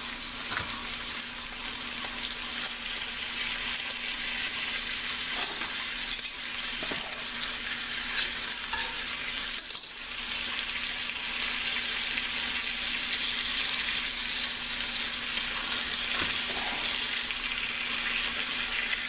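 Raw bacon strips frying in an enameled cast-iron skillet: a steady sizzling hiss with faint pops as more strips are laid into the hot fat. A faint steady hum runs underneath.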